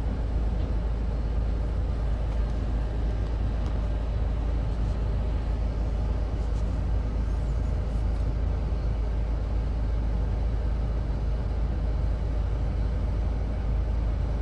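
Steady low vehicle rumble, heard from inside a car at a level crossing while a freight train's last wagons roll past.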